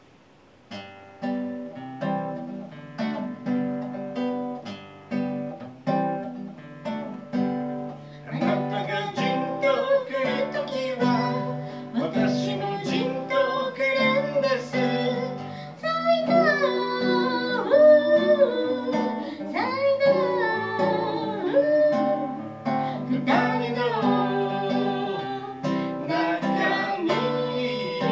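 A man singing live to his own strummed acoustic guitar. The guitar plays alone at first, and the voice comes in about eight seconds in.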